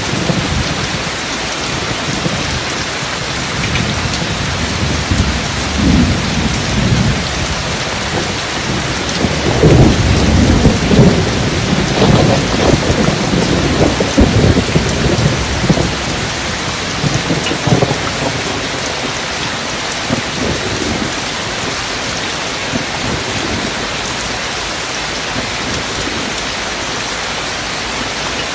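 Steady rain with a long rumble of deep thunder that rolls in several seconds in, is loudest around the middle, and dies away about two-thirds of the way through.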